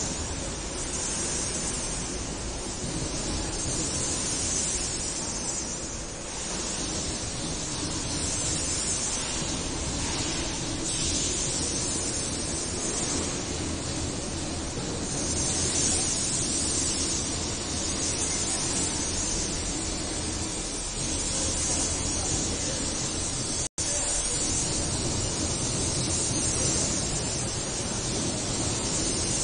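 Steady, even hiss with no distinct events, broken by a brief dropout to silence about two-thirds of the way through.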